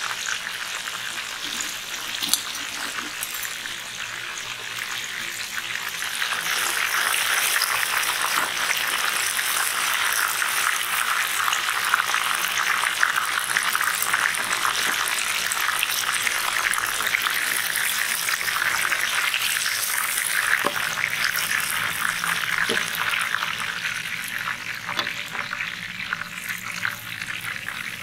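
Spice-coated leather jacket fish pieces deep-frying in a large wok of hot oil: a dense, crackling sizzle that grows louder about six seconds in and eases off near the end.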